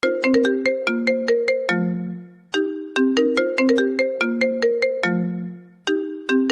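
A marimba-like ringtone melody. A short phrase of quick notes is played twice, each ending on a held low note that fades away. It is the opening of the iPhone-ringtone version of a pahari song.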